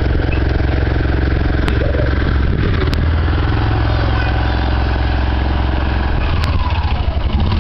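Small engine of a three-wheeled mototaxi running steadily, its note turning uneven and choppy near the end.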